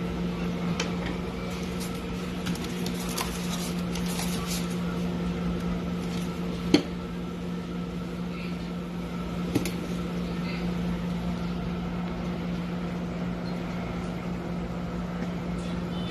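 Microwave oven with a newly replaced magnetron running on a test: a steady hum, with two sharp clicks, the louder one about seven seconds in.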